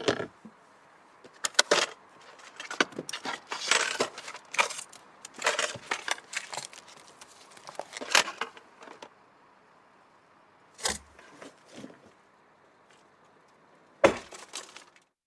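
Hands rummaging through a stationery drawer: small metal and plastic items clattering and rattling against each other in quick, dense bursts for about nine seconds, then a few separate knocks and a last short clatter near the end.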